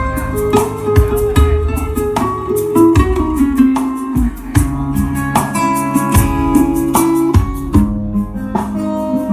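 Guitar-led music played back through a stack of 8-inch line array speaker cabinets, with a steady beat and deep bass notes, as a demonstration of the cabinets' sound.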